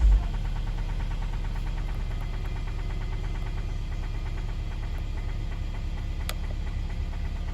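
Mercedes-Benz M270 2.0-litre turbocharged four-cylinder engine running steadily with a fast, even knock, the engine knock the owner is recording. A single sharp click about six seconds in.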